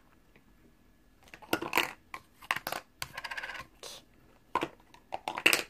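Small hard plastic toy pieces and their clear plastic packaging clicking and clattering as they are handled on a tabletop, in scattered bursts after a quiet first second or so, with a short rustle about three seconds in.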